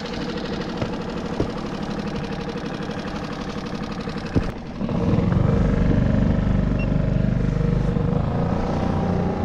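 Small outboard motor on a solo skiff, running steadily under way. About halfway through there is a sharp knock, after which the sound turns louder and deeper.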